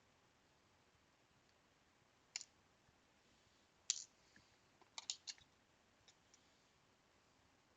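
Small sharp clicks of hand tools and parts against a Game Gear circuit board while its old capacitors are being removed: one click, a louder one, a quick run of three, then two faint ones, with near silence between.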